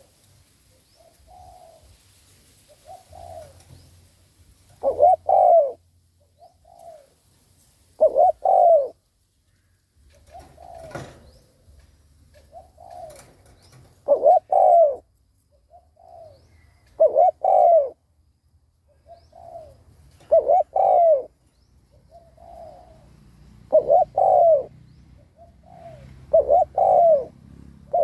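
Spotted dove cooing over and over: a loud two-note coo about every three seconds, with softer single coos between them. It is a decoy bird's calling, meant to provoke and draw in wild doves.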